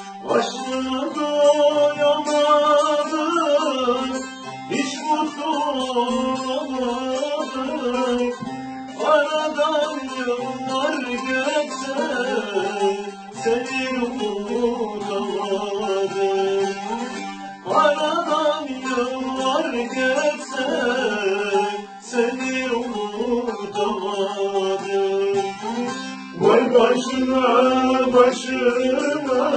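Music from a Turkish folk song: plucked string accompaniment under a melody line that glides and bends, over a steady low note.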